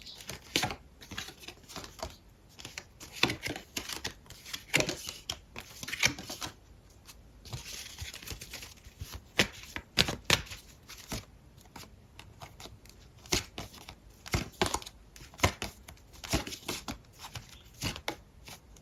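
Tarot cards being handled and shuffled: irregular papery rustles and light taps of cards, coming in scattered bursts.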